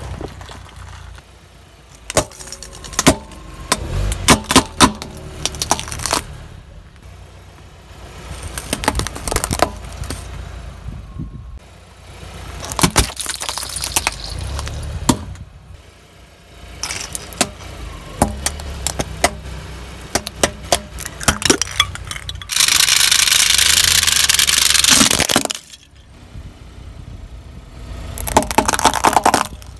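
A car tyre rolling slowly over plastic and rubber objects on asphalt, with repeated sharp cracks and snaps of plastic breaking over the low rumble of the car. About three quarters of the way through comes a loud steady hiss lasting about three seconds, and near the end a shorter noisy burst as plastic pens are crushed.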